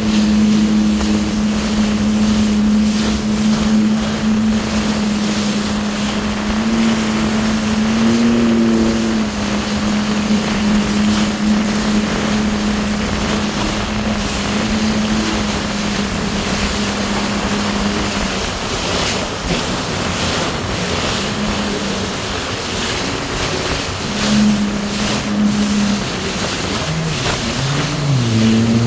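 Jet ski engine running steadily at cruising speed, with water rushing and spraying and wind buffeting the microphone. The engine's note fades for a few seconds past the middle, comes back, and shifts pitch near the end.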